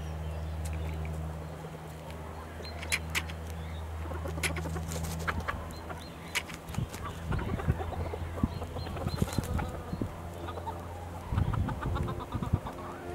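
Chickens clucking, with short sharp calls scattered through, over a steady low hum that fades about halfway; crackly low rustling follows in the second half.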